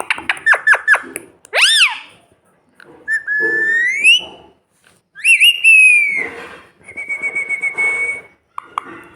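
Pet parrot whistling: a quick run of short falling chirps, then a string of separate clear whistles, one rising and falling, one long rising glide, one falling, and a level held note near the end.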